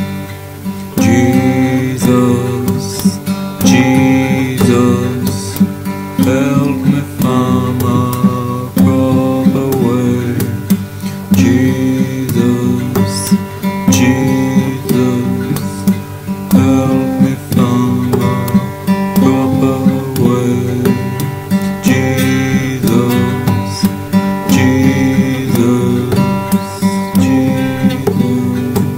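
Acoustic guitar strummed in a steady rhythm, chords changing throughout.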